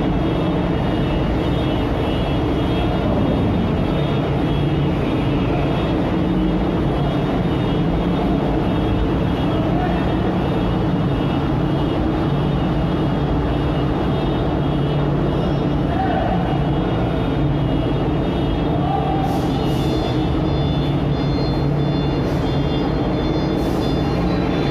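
Heavy trucks' engines running in a steady, loud din.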